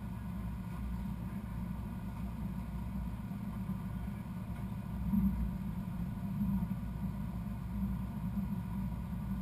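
A steady low engine rumble that swells slightly about five seconds in.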